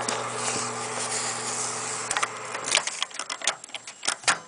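Microwave oven running with a steady hum that stops about two seconds in, followed by a string of sharp clicks and knocks as its door is worked to open it.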